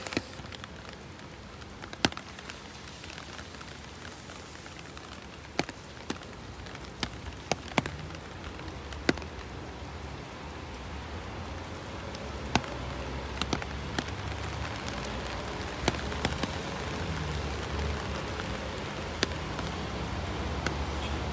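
Steady rain, with sharp taps of single drops close by at irregular intervals. A low rumble gets louder about halfway through.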